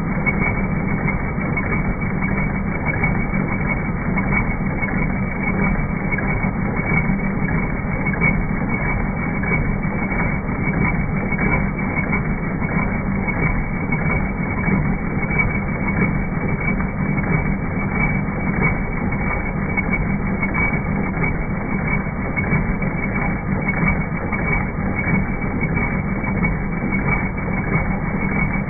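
Bestsew B-3620 multi-needle embroidery machine running and stitching, a steady mechanical running sound with a strong low hum, dull with no high end.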